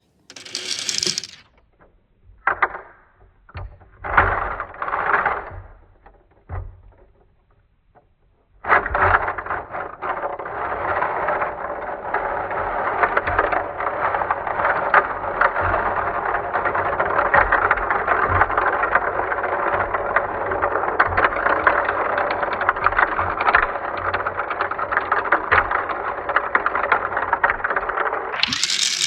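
Tiny 6 mm balls rolling and clicking through a small 3D-printed plastic marble run. A few separate short rattles come first, then from about nine seconds in there is a continuous dense clicking rattle of many balls running at once, until near the end.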